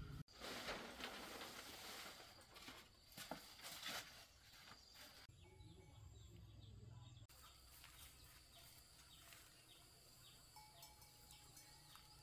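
Near silence: faint rural outdoor ambience. Faint rustling in the first few seconds, then faint high chirps repeating at an even pace through the second half.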